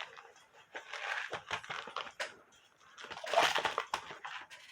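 Small metal clicks and scrapes of hands working on a cuckoo clock movement, starting the plate nuts on the posts. The loudest part is a longer scraping rustle about three and a half seconds in.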